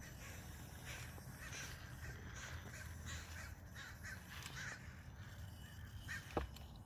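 Birds calling repeatedly in short, harsh calls over a low background rumble, with one sharp click near the end.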